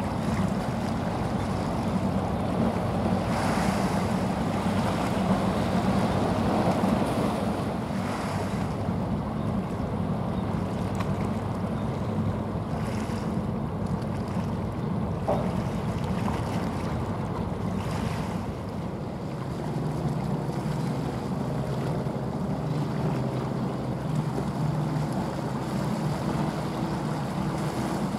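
A small coastal general cargo ship passing close, its diesel engine giving a steady low drone over the rush of water along the hull, with wind on the microphone. The drone's tone changes about two thirds of the way through.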